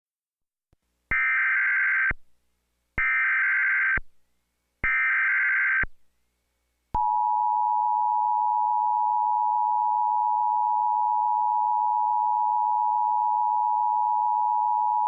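Emergency Alert System alert: three bursts of about one second each of the buzzing SAME digital header tones, then the steady two-tone EAS attention signal held for about eight seconds before cutting off.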